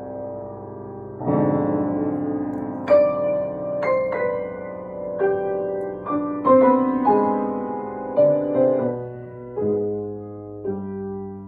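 Grand piano played solo in a slow, mournful improvisation in C minor. A held chord, then a fuller chord struck about a second in, followed by single melody notes over sustained harmony that thin out and fade near the end.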